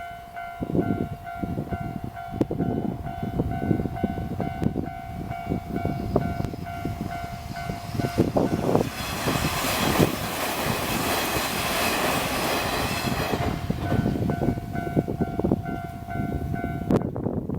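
Japanese level crossing's electronic warning bell ringing in a steady repeating tone while a Kintetsu train passes, its wheels clattering over the rail joints. The train is loudest through the middle and drowns the bell, and the bell cuts off near the end.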